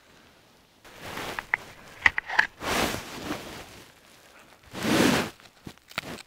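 Dry dead birch wood and bark being handled for kindling: rustling with several sharp cracks, and two loud swishing bursts about three and five seconds in.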